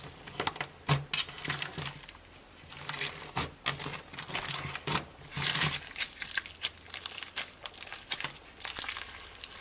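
Slime being squeezed and pulled by hand, giving dense, irregular crackling and popping that starts abruptly.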